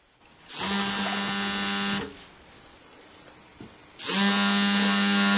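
Mobile phone vibrating on a glass tabletop, an even rattling buzz that comes twice, each about a second and a half long, with a pause between: an incoming call.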